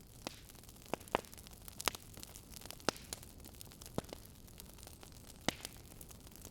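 Wood fire crackling: irregular sharp pops, several seconds apart and unevenly spaced, over a steady soft hiss.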